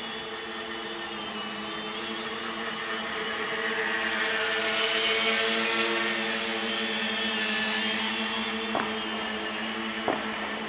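Tricopter's three electric motors and propellers buzzing steadily in flight with a high whine on top, growing louder as it comes close in the middle and easing off again as it moves away. Two short clicks near the end.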